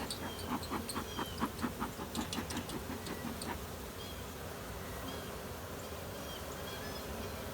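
Honeybee swarm buzzing steadily as the bees fan their wings and crowd into a hive box, with a rapid run of clicks over the first few seconds.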